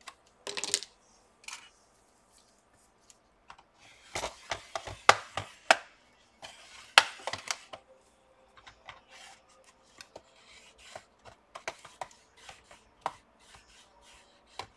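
Plastic snap clips of a Dell Inspiron 15 3580 laptop case clicking and cracking as the palm rest and bottom cover are pried apart. Irregular sharp clicks and snaps come in clusters about half a second, four to six, and seven seconds in, then give way to lighter scattered ticks.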